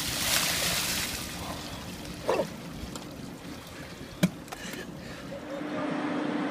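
Ice water from a bucket pouring and splashing onto a seated person, loud for about the first second and then dying away to a quieter wash. There is a sharp knock about four seconds in, and a steady hum starts near the end.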